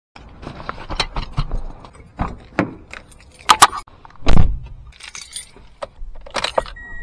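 Handling noises of getting into a car with drum gear: a run of clicks, knocks and rustles, a sharp clatter, then a car door shutting with a deep thud about four seconds in. Keys jangle as the key goes into the ignition near the end, and a short car warning beep starts just at the close.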